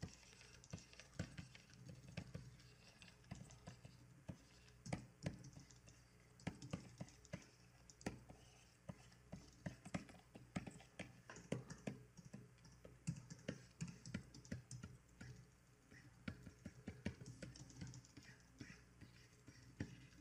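Faint, irregular clicking and tapping of computer keyboard keys, a few clicks a second at times with short gaps between.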